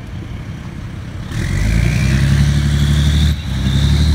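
Tank engine running, then revving hard about a second in as the tank drives up onto a car under load, with a high whine rising in pitch over the deep engine drone. There is a brief dip in the revving near the end.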